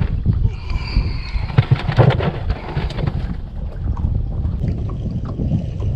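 Wind buffeting the microphone on an open boat: a low, irregular rumble with uneven thumps.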